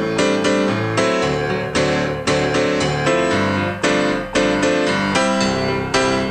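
Background music led by piano: a run of struck chords and notes, several a second, at a steady level.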